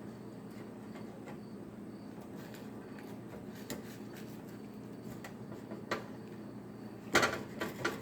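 A steady low hum, then a click about six seconds in, then a quick run of metal knocks and scrapes near the end: a spatula working against a frying pan while trying to get under a grilled cheese sandwich.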